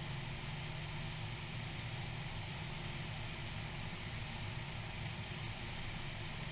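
Steady in-flight noise of a single-engine light airplane: an even rush of air with a low engine drone underneath.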